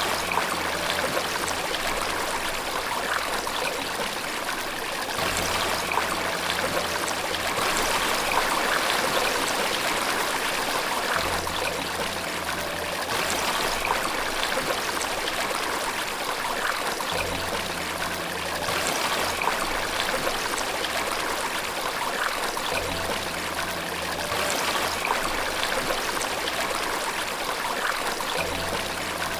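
Steady rushing water of a waterfall, with a soft low tone that swells in for a couple of seconds about every six seconds underneath.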